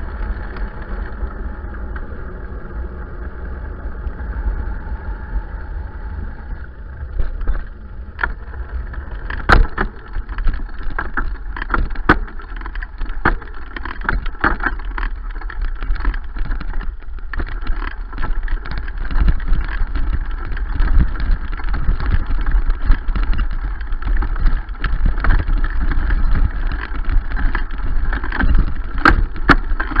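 Wind buffeting and a low rumble on a bicycle's handlebar-mounted camera while riding. Once the bike is on rough grass, from about seven seconds in, frequent sharp knocks and rattles come through from the bike and the camera mount.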